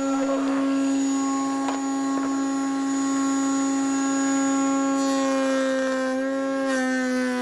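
Table-mounted router spinning a lock miter bit, a steady whine as a board is fed past the bit on a first, shallow pass. The pitch dips slightly about six seconds in.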